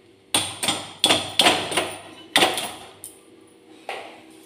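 A quick series of about six sharp knocks and clatters from hard objects being handled in a kitchen, each ringing briefly, followed by a fainter knock near the end.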